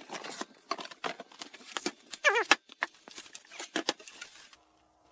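Cardboard box and packing being handled while a computer case is unpacked: irregular rustling, scraping and knocking, with a short wavering squeak a little over two seconds in. The sound cuts off abruptly about half a second before the end.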